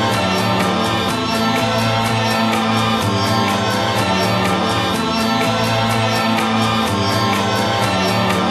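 Background music with a steady beat over sustained held chords.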